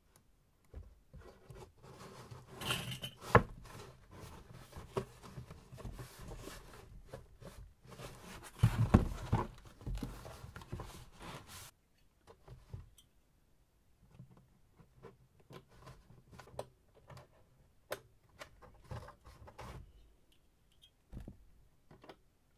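Cardboard being handled and worked by hand: rustling and scraping with sharp clicks and knocks, busiest in the first twelve seconds, then sparser clicks.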